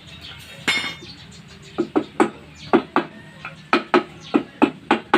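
Metal motorcycle engine parts clinking: a short clatter under a second in, then a run of sharp metal clinks or taps, about two a second.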